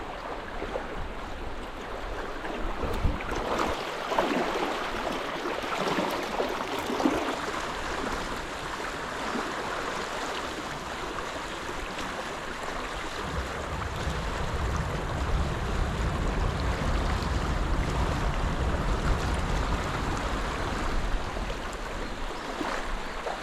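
River current rushing steadily, an even water noise. About halfway through, a low rumble joins it.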